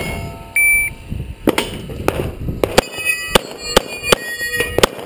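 Electronic shot timer beeps once, then a Beretta 92A1 9mm pistol fires a rapid string of about nine shots, with ringing tones after them.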